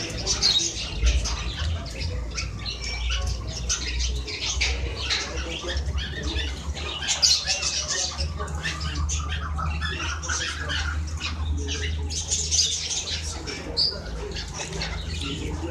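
Birds chirping and squawking: many short, high-pitched calls throughout, over a steady low rumble.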